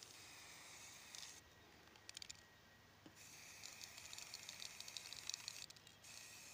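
Aerosol spray-paint can hissing in bursts, with a short rattle about two seconds in between two longer sprays.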